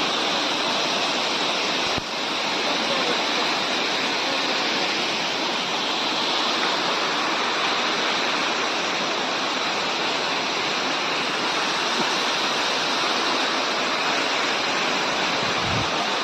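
Waterfall rushing, a steady, dense roar of falling water.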